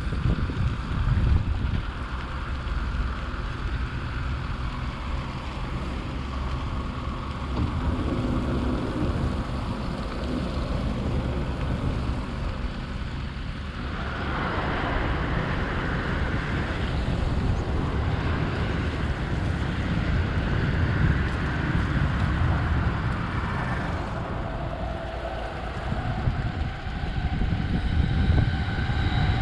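Wind buffeting the microphone, a continuous low rumble with a steady outdoor noise behind it that swells for a few seconds mid-way.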